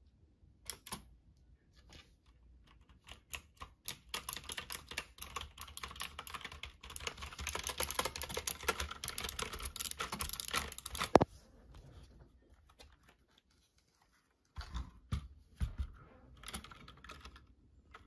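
Typewriter-style mechanical keyboard with clicky blue switches being typed on: a few single key presses, then several seconds of fast continuous typing ending in one sharp, loud clack. After a pause come a few more scattered keystrokes.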